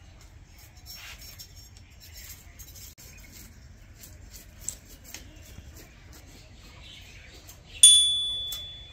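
Faint rustling and small clicks of handling, then near the end one sharp metallic clang that rings with a clear high tone and fades over about a second: a metal cooking utensil struck or set down.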